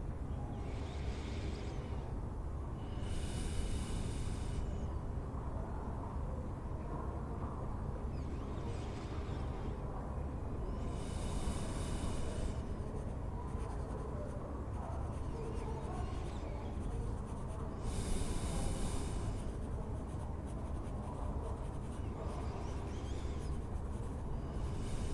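A quill scratching on parchment in six short spells of writing, over a steady low rumble of room ambience.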